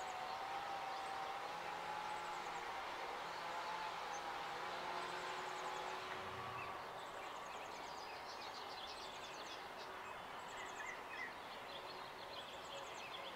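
Steady outdoor background hum with small birds chirping and giving short high trills now and then.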